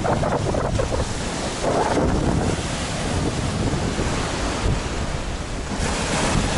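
Black Sea waves breaking on the shore in a light storm, with wind buffeting the microphone.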